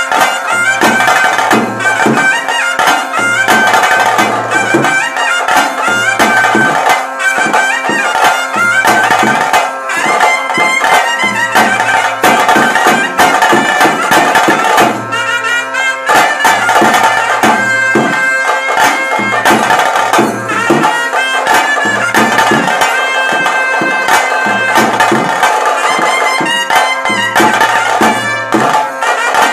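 Traditional ritual music: a shrill double-reed pipe playing a sustained melody over steady drumming.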